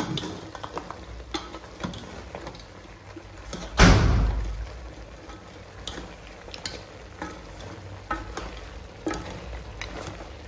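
A spoon stirring mutton head pieces in a cooking pot, with scattered scrapes and clinks of metal on metal and one loud knock about four seconds in.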